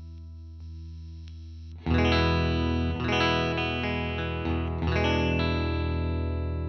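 Electric guitar played through a Fender Tone Master Princeton Reverb amplifier, demonstrating one of the settings of its five-step power selector. A held chord rings softly, then a loud chord is struck about two seconds in and another about five seconds in, each left to ring and fade.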